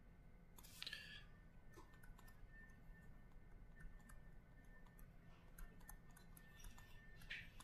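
Near silence: low room hum with faint scattered ticks of a stylus writing on a tablet screen, and two brief soft hisses, about a second in and near the end.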